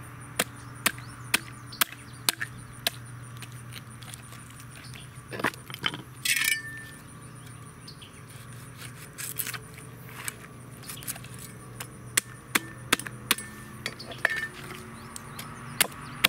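Cleaver and knife chopping and tapping through a paddlefish on a wooden chopping block: a string of sharp clicks and knocks, about two a second at first and more scattered later, with a short rush of scraping noise around the middle.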